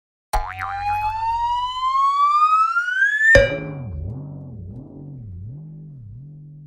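Cartoon sound effect: a tone rising steadily in pitch for about three seconds, cut off by a sudden hit, then a low wobbling tone that warbles about twice a second and fades away.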